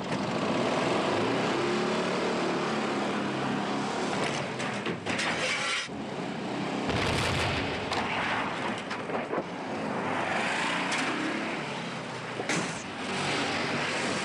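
Volkswagen Transporter van's air-cooled flat-four engine revving hard, its pitch surging up and down. About seven seconds in there is a sudden loud burst, and the engine then revs on in uneven surges.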